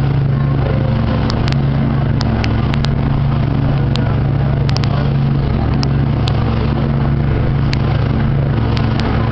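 Motorboat engine running at a steady cruising speed, a constant low drone, with scattered short clicks.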